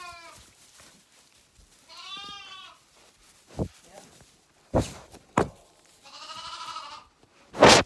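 Hungry Zwartbles lambs bleating at bottle-feeding time: three calls, the last one quavering. Sharp knocks and bumps from the lambs jostling the recording phone come in between, the loudest just before the end.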